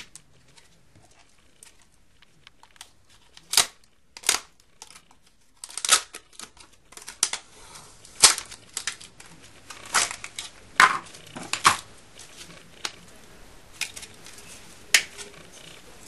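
Stiff plastic packaging crinkling and snapping as it is handled and opened, in irregular sharp clicks with crackling between them.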